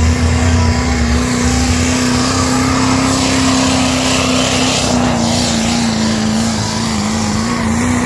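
Diesel pickup truck's engine held at full throttle under load, pulling a sled. It runs at one loud, steady high pitch with a slight waver, and the truck passes closest about four seconds in.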